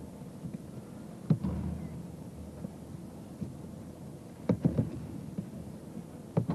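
Thuds of aikido partners being thrown and slapping down onto tatami mats in break-falls: one about a second in, a quick cluster of three or four around four and a half seconds, and another near the end, over a steady hall hum.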